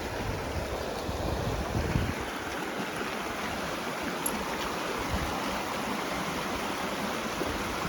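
Creek water flowing steadily, an even rushing noise.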